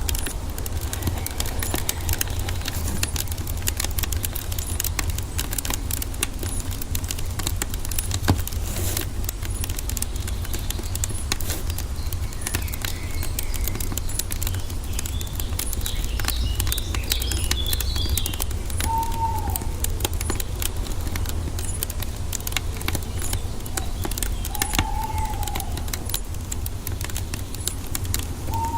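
Wood fire crackling in dense, irregular pops over a steady low rumble. A bird twitters briefly about midway, and a short arched call sounds three times in the second half.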